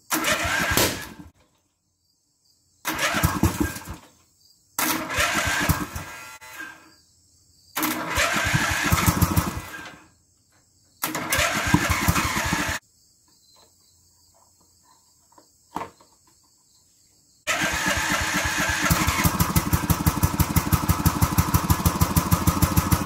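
The log splitter's 15.5-horsepower engine is started with its key: five short bursts of cranking and firing with pauses between them, then it catches about 17 seconds in and runs on with an even pulsing beat. Coupled to the hydraulic pump, this engine did not appear to have the power to turn it.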